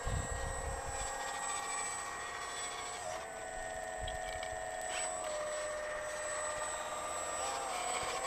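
Hydraulic RC model excavator, a Liebherr 946 replica, working: a steady whine from its hydraulic pump, stepping in pitch a few times as the boom and bucket move. Wind rumbles on the microphone near the start.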